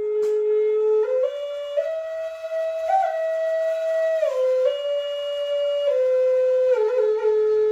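Solo flute melody, slow and legato: it starts on a held low note, steps up through several notes to a high point about three seconds in, then steps back down and settles on the long low note again near the end.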